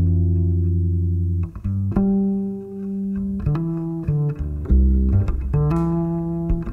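Solo double bass played pizzicato: a phrase of plucked notes, the first held ringing for over a second, the rest following more quickly.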